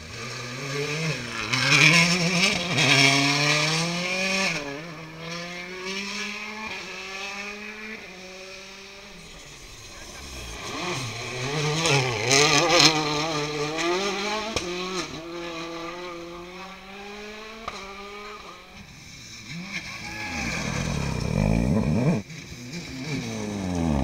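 Several World Rally Cars, including a Citroën DS3 WRC, power through a gravel hairpin one after another. Their turbocharged engines rev up and down through gear changes, loudest on two passes early on and around the middle. Later comes a close, quick pass-by with the engine pitch falling as the car goes by.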